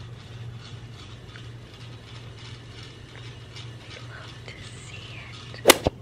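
Quiet room tone: a steady low hum with faint scattered ticks, then one sharp, loud click near the end.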